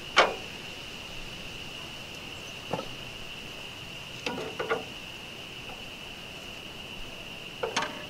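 A long spirit level knocked and set down on the steel track of a portable band sawmill: a sharp knock just after the start, another near three seconds, a quick run of clanks around four and a half seconds, and two more near the end. A steady high-pitched insect-like drone, like crickets, runs underneath.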